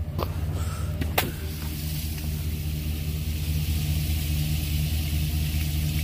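Truck-mounted carpet cleaning machine's engine running steadily, with two sharp clicks in the first second or so. From about a second and a half in, water gushes steadily from an open ball-valve drain, splashing onto pavement.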